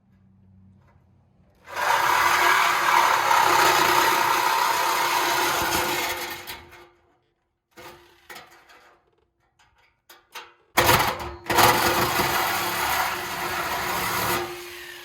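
A power tool cutting through the steel exhaust pipe, run twice for a few seconds each time with a steady whine, and a pause with a few clicks in between.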